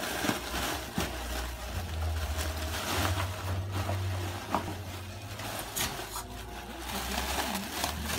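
Plastic bubble wrap crinkling and rustling as a pug pushes and moves through a pile of it, with scattered sharp crackles. A steady low hum runs underneath.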